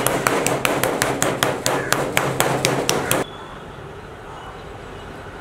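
A metal meat mallet pounds a raw chicken breast on a wooden cutting board in a fast, even run of sharp strikes, about five or six a second. The strikes stop suddenly a little over three seconds in.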